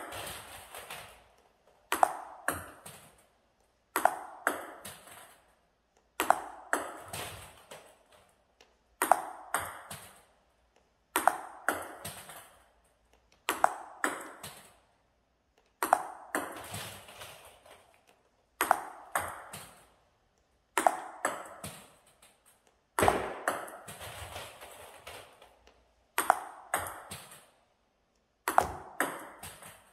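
A table tennis ball clicking off a paddle and bouncing on the table in quick groups of a few sharp hits, one group every two seconds or so, each with a short echo of the room.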